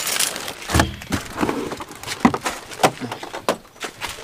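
Hard-shell suitcases being handled and shifted: irregular knocks, clatters and thuds, with a heavier thud about a second in.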